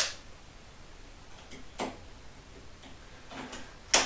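Black ribbed plastic shims being scored with a utility knife and snapped off, making sharp snaps: one at the start, one near two seconds in, and the loudest near the end.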